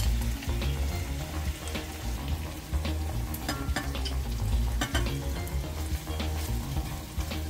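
Pork chops and sliced onions sizzling in a frying pan, with a scattering of sharp clicks and taps from tongs against the pan and plate as the chops are lifted out, most of them a little past the middle.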